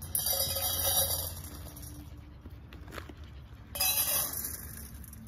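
Dry dog kibble poured from a bag into stainless-steel bowls, rattling and clinking against the metal. There are two pours: a longer one at the start and a shorter one about four seconds in.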